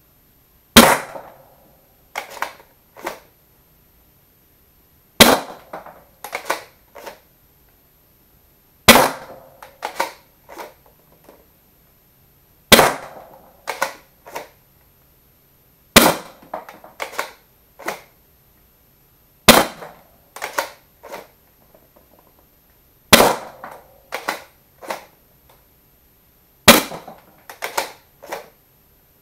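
A Worker Prophecy Type R foam-dart blaster with a brass breech insert is fired eight times, one sharp shot every three to four seconds, with a few softer clicks after each shot.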